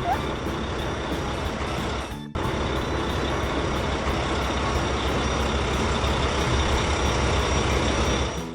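Cartoon truck engine sound effect: a steady, noisy engine rumble with a brief break about two seconds in.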